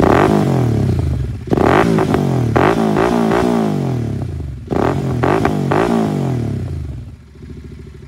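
Royal Enfield Continental GT 650's parallel-twin engine, fitted with an aftermarket stainless-steel exhaust, being blipped: a series of sharp throttle blips, the revs falling back after each one. It settles back toward idle near the end.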